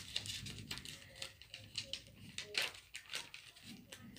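Paper pages of a handmade junk journal being turned by hand: a run of short rustles and flicks, loudest about two and a half to three seconds in.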